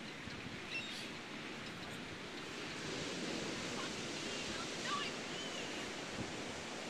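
Steady wash of ocean surf, swelling a little in the middle, with a few faint short high chirps.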